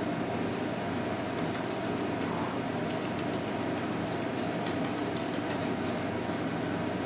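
Steady hum of an electric fan running, with two short clusters of faint, light clicks about one and a half seconds and five seconds in.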